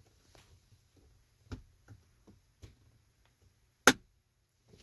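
Near quiet, with a few faint knocks and one sharp click about four seconds in: handling noise from a phone held in a hand.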